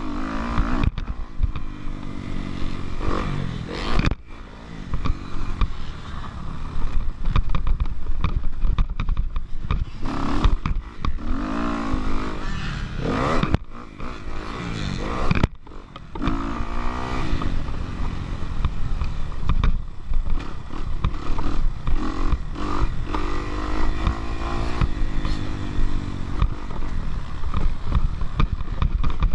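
Kawasaki KX250F motocross bike engine heard from on board, revving up and down hard through the gears, with brief throttle chops about 4 seconds in and again around 14 to 16 seconds; wind and chassis rattle mixed in.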